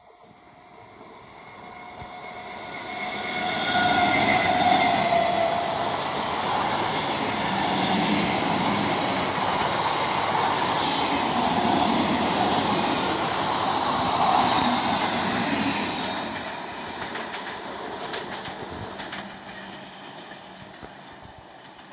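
Electric multiple-unit local train passing at speed: the rush of its wheels on the rails rises over about four seconds to a loud, steady roar, holds for some twelve seconds as the coaches go by, then fades.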